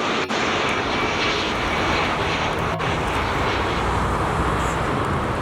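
Boeing 747 freighter's four jet engines running steadily as it flies the final approach to landing, a continuous rushing roar with a faint whine in the first half.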